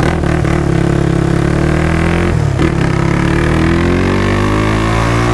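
Big-bore Honda CBX 250 Twister single-cylinder engine, bored to 79 mm with a performance cam and an aftermarket exhaust, pulling hard under acceleration. There is a quick gear change a little over two seconds in, then the revs climb steadily through the next gear.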